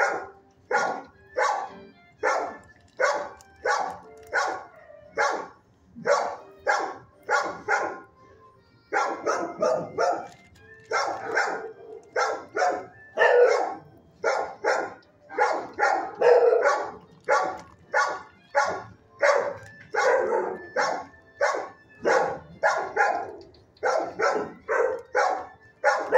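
Dogs in neighbouring shelter kennels barking steadily, about two barks a second, with a brief pause about eight seconds in.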